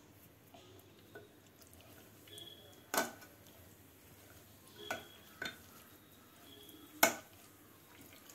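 A metal spoon stirring spice powder into pickled citron pieces in a ceramic jar, clinking sharply against the jar's side four times; the clinks about 3 and 7 seconds in are the loudest.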